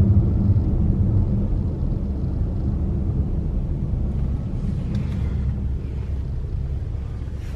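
Low, steady rumbling noise, loudest at the start and slowly fading.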